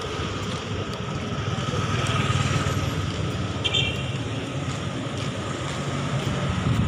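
Roadside traffic: car and motorcycle engines running and passing in a steady din, with one short high beep a little past halfway.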